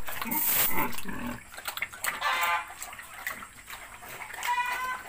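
Pig eating wet feed in a concrete pen: wet slurping and chewing, loudest in the first second or so. Two short higher animal calls sound, one about two seconds in and one near the end.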